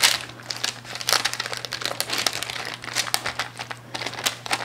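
Parchment paper crinkling and crackling irregularly as a wooden spoon presses and spreads soft zucchini-and-cheese dough across it.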